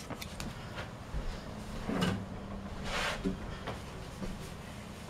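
Handling noise of an acoustic guitar being picked up and settled into playing position: soft knocks and clicks, with short rustles about two seconds in and again about a second later.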